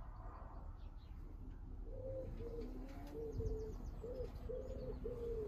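A pigeon cooing: a run of short, repeated low coos starting about two seconds in, with a few faint chirps of small birds before it.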